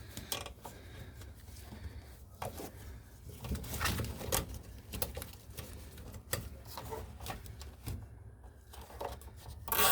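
Faint, scattered clicks and rustles of plastic cable ties being fitted and pulled around a car's wiring loom.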